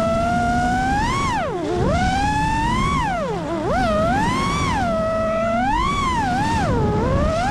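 FPV freestyle quadcopter's brushless motors whining, the pitch swooping up and down repeatedly as the throttle is punched and cut, over a low rumbling noise.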